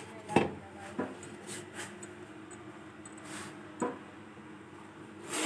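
Light knocks and clinks of kitchen utensils on an iron tawa while a roti is cooked, the sharpest about half a second in and a few softer ones after.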